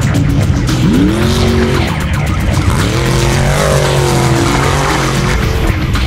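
Class 1 desert race buggy's LS7 V8 revving hard as it accelerates: the pitch climbs about a second in and holds, drops away, then climbs again a little under three seconds in and is held at high revs for about two seconds.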